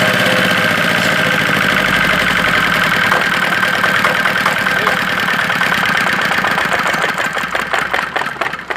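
Jiangdong ZH185 single-cylinder diesel engine running with a steady thudding beat. Near the end the beat grows uneven and the sound falls away as the engine winds down.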